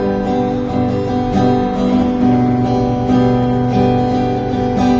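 Acoustic guitar strummed, chords ringing and changing every second or so.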